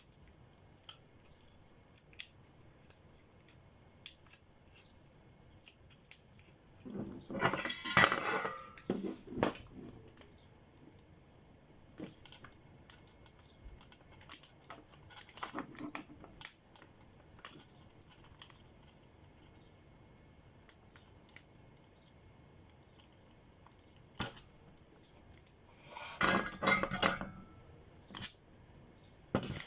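Small hard objects clicking and clattering as they are handled, with scattered single clicks and two louder bursts of rattling, one about a quarter of the way in and one near the end.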